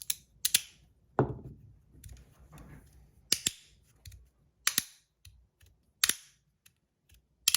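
A 3D-printed magnetic haptic slider fidget snapping back and forth. Each slide gives a sharp click, mostly in quick pairs, about every second or so.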